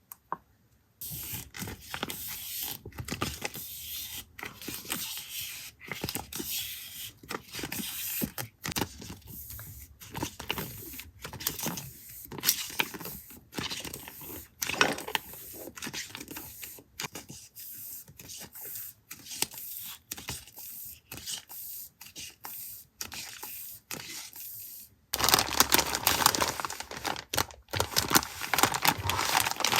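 Paper and journaling materials being handled close up: rustling, scraping and tearing with many small clicks, growing louder and denser about 25 seconds in.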